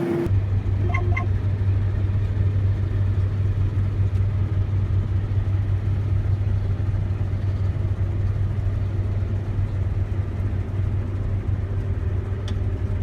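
Claas Lexion 760 combine harvester running, a steady low drone heard from inside its cab.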